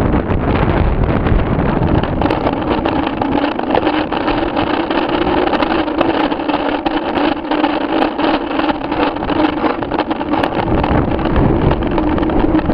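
Wind buffeting the microphone of a camera riding on a mountain bike on a rough dirt road, with a steady hum underneath and constant small rattles and knocks from the bumps.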